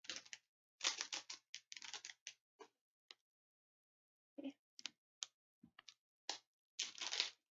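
Clear plastic bag and tissue paper crinkling as they are handled, in short spells of crackles with a quiet gap of about two seconds in the middle.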